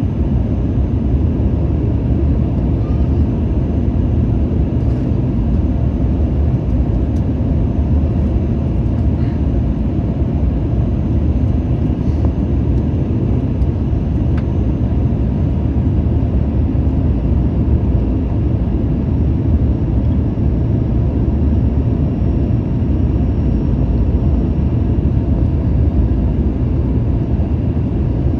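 Steady cabin noise inside a Boeing 737-900ER: an even, deep rush of airflow and CFM56 engines with no sudden changes.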